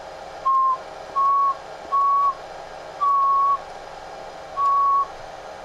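A person whistling five short, steady notes of one pitch into a transceiver microphone on sideband, each about half a second long with short gaps between them. This is the usual way to make a sideband transmitter put out power so the meter shows the amplifier's peak output.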